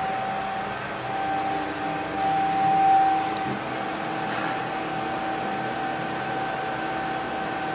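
Steady machine hum with several steady tones, swelling slightly a couple of seconds in.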